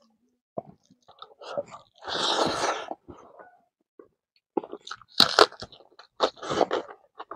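Close-miked chewing of a handful of rice, kidney beans and smoked pork, with loud crisp crunches about five seconds in as raw onion is bitten and chewed.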